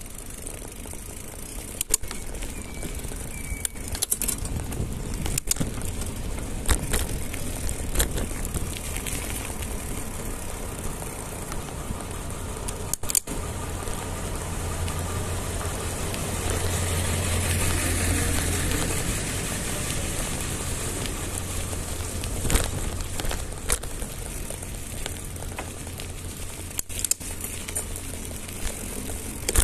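Mountain bike coasting down a steep concrete street with the brakes held: steady tyre and wind rush, heavier for a stretch in the middle, with scattered sharp clicks and rattles from the bike.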